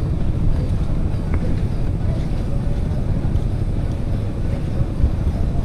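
A small boat's engine running steadily under way, a continuous low rumble, with wind buffeting the microphone.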